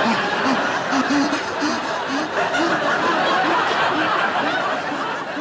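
Studio audience laughing: a sustained wash of many people's laughter that slowly tails off near the end.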